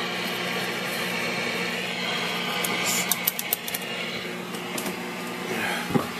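Steady low hum and hiss from a switched-on vintage hybrid tube television chassis, with a quick run of clicks about three seconds in.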